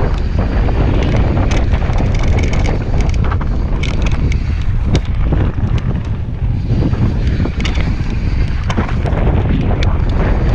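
Wind rushing over the camera microphone at speed, over the mountain bike's tyres running on a dirt and gravel trail, with frequent sharp clicks and knocks as the bike rattles over bumps.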